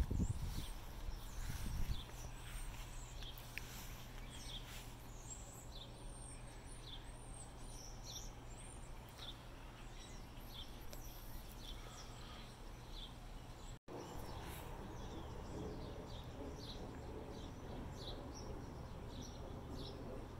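Birds chirping outdoors: short high chirps repeat about once or twice a second over a steady low hum. A low rumble comes in the first two seconds, and the sound cuts out for an instant about two-thirds of the way through.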